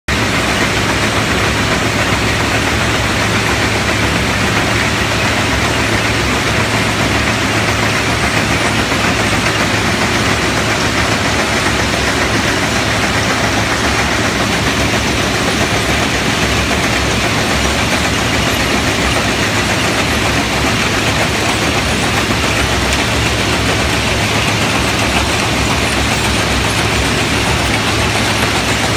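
Heavy railway diesel engine running steadily, a constant loud drone with a low hum that does not change.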